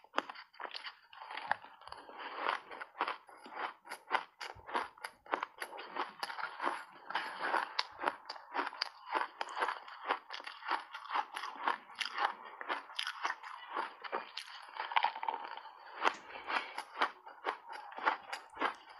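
Crunching and chewing of mouthfuls of refrozen ice chunks coated in matcha and milk powder, a rapid, unbroken run of crisp crunches.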